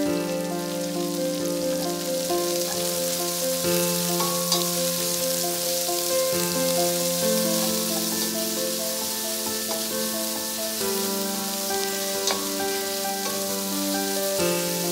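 Sliced red onion frying with cumin seeds in a stainless steel pan: a steady sizzle while a wooden spatula stirs it, with a couple of brief clicks. A melodic music track plays over it.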